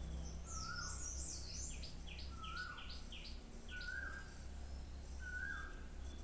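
Birds chirping: one repeats a short whistled call about every second and a half, while another gives a quick run of high chirps in the first half. A low steady hum sits underneath.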